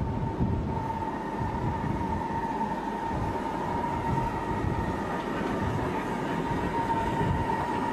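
10¼ in gauge miniature steam locomotives, an LBSCR Terrier and a Caledonian 'Dunalastair' 4-4-0, double-heading a passenger train past: an uneven rumble of the train on the track, with a steady high whine over it.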